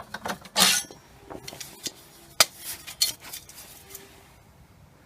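A few separate sharp metallic clinks and knocks as metal objects are handled, with a short scraping rustle under a second in.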